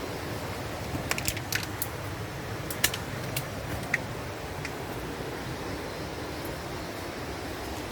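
Steady rush of a waterfall, with a handful of short, light clicks scattered between about one and four seconds in.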